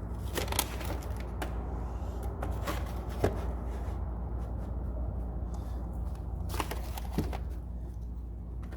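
Scattered light clicks and knocks of sockets and a toolbox drawer being handled, over a steady low hum.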